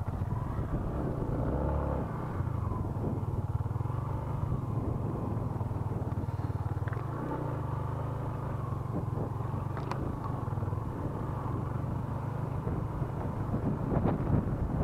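Yamaha Exciter 150's single-cylinder four-stroke engine running steadily as the motorcycle rides a rough dirt trail, with a few sharp knocks and rattles from the bumps, busier near the end.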